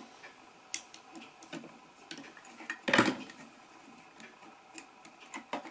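Light metallic clicks and clinks of a screwdriver and small metal parts being worked on a 1930s Burroughs adding machine while its cover screws are taken out, with one louder knock about three seconds in.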